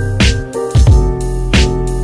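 Background music with piano or keyboard chords, deep bass and a steady drum beat.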